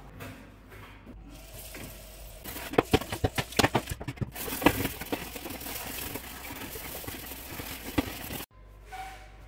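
A metal oven tray being scrubbed clean at a kitchen sink: busy scraping and scrubbing with sharp knocks and clatters of the tray, starting about two and a half seconds in and stopping abruptly near the end.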